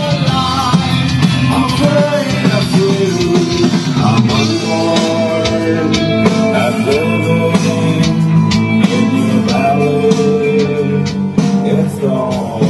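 Rock music: a singing voice over guitar and drums.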